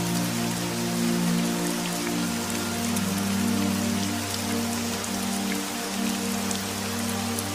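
Steady rain falling, a dense hiss with scattered drop ticks, over a soft ambient music pad of low held notes that changes chord about two seconds in.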